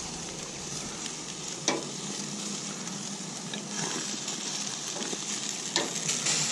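Chicken wings sizzling on the hot grates of a Camp Chef FTG600 propane grill, a steady frying hiss, with a few sharp clicks of metal tongs against the grate as the wings are turned.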